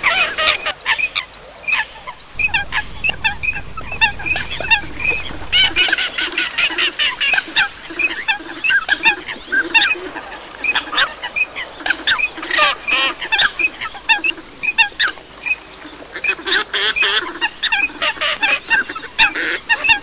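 A mixed flock of waterfowl, common coots with teal and pintail ducks, calling: many short calls overlapping, without a pause.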